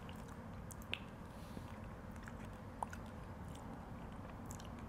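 Quiet chewing and mouth sounds of people eating dragon fruit off spoons, with a few soft clicks, over a low steady hum.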